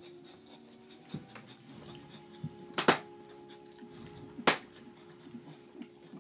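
Close-up handling and rustling noise with two sharp knocks about a second and a half apart, over a faint steady hum.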